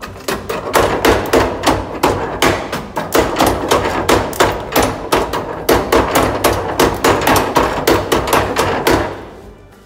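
Hand-cranked working model of a four-stamp mill: cams on the turning shaft lift the stamps and drop them in turn, a steady rhythmic pounding of about four to five blows a second that stops about nine seconds in.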